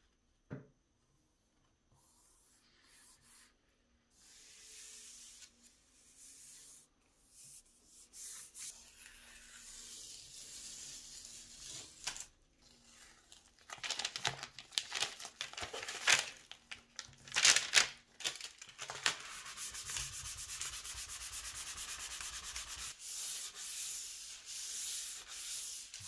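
Hands rubbing a glued paper sheet flat on a hardboard panel, then green painter's tape being peeled off the board with several short rasps and a long steady rip about 20 seconds in, with paper rustling.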